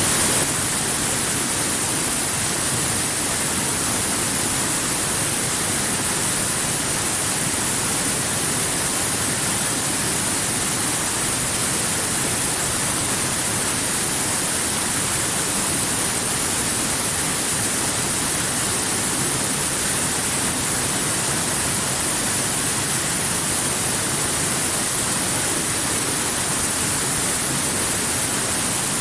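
Waterfall: a steady rushing hiss of falling water, brightest in the high treble, dipping slightly in level about half a second in.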